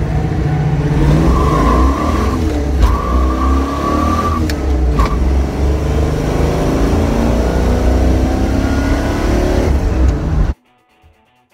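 Car engine accelerating hard, its pitch climbing again and again as a manual floor shifter is worked through the gears, with a few sharp clicks along the way. The engine sound cuts off suddenly near the end, leaving faint music.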